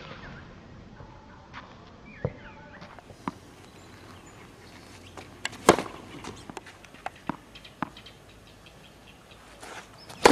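Tennis ball struck by rackets and bouncing on a clay court during a rally: sharp pops a second or more apart, the loudest about halfway through.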